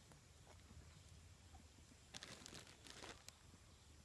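Near silence, with a brief faint crackling about two seconds in and a single small click just after.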